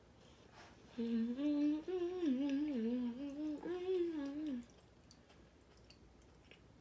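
A woman humming with her mouth closed, her pitch wavering up and down, starting about a second in and stopping after about three and a half seconds.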